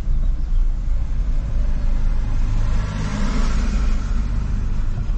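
Inside a moving car: the steady low rumble of the engine and road, with a hiss swelling louder about three seconds in.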